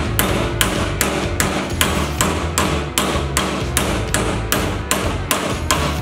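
Hammer blows on a small steel plate clamped in a bench vise, bending it over flat against the jaws: sharp metallic strikes in an even rhythm of about two and a half a second.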